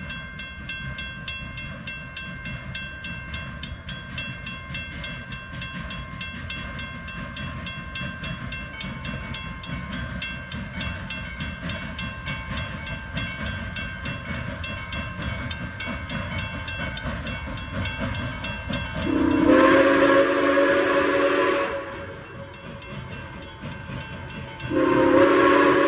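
A grade-crossing warning bell rings steadily as the 2-6-6-2 Mallet steam locomotive WMSR 1309 approaches. The locomotive's steam whistle sounds one long blast about 19 seconds in, and a second long blast starts near the end.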